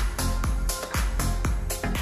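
Upbeat electronic dance music with a steady beat and heavy bass.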